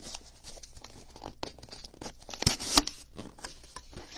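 Packaging of a mystery autographed-baseball box being torn open and handled: rustling and tearing, with two sharp, louder rips about two and a half seconds in.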